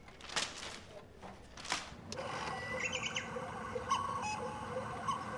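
Two short rustles, then from about two seconds in a steady background hiss with small birds chirping in short scattered calls.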